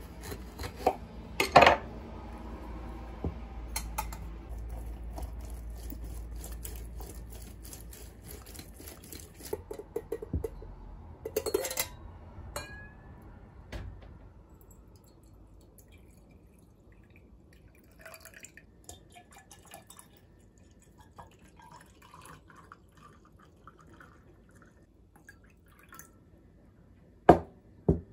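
Lemon being cut with a knife and juiced on a stainless-steel hand reamer, with scattered clinks of metal and glass, juice dripping and a short pour. The sharpest clinks come about a second and a half in and twice near the end.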